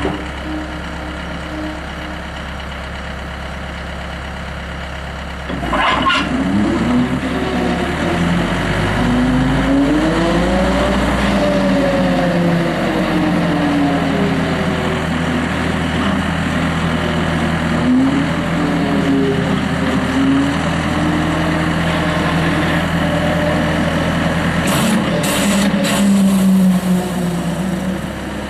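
Skid steer loader's engine running steadily, then louder from about six seconds in, its pitch rising and falling as the hydraulics work the swing boom cutter. A few short sharp noises come as the engine gets louder and again near the end.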